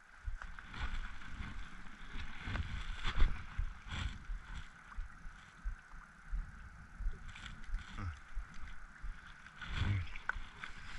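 Wind gusting on the microphone and small waves lapping against a rocky lakeshore, with scattered knocks and rustles from handling a fishing rod.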